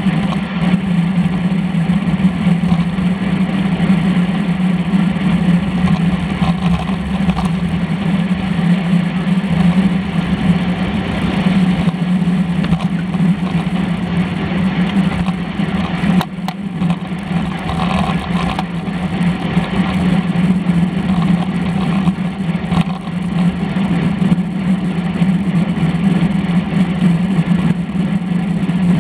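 Steady wind rush and road vibration picked up by a handlebar-mounted action camera on a road bike at race speed, with a constant low hum underneath.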